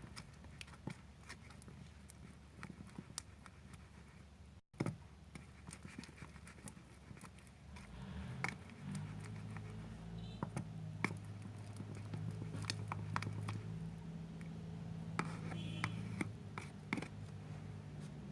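Stirring utensil working glue slime as activator is mixed in, giving faint scattered clicks and scrapes against the container. A low steady hum joins about eight seconds in.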